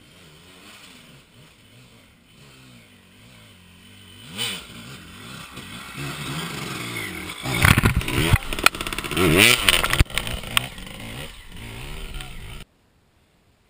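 Dirt bike engines coming up the trail and revving hard as a rider passes close by, the note rising and falling, loudest about eight to ten seconds in with some knocks and clatter. The sound cuts off suddenly near the end.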